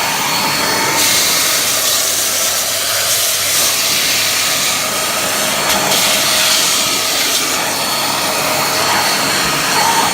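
Deerma DX-118C handheld vacuum cleaner running at full suction. A steady motor whine gives way about a second in to a brighter rushing of air, which swells and eases a few times.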